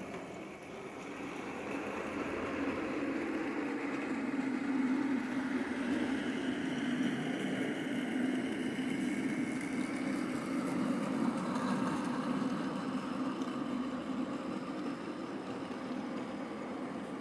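OO gauge model trains running: a steady whirr of locomotive motors with wheels rumbling over the track, growing louder over the first few seconds.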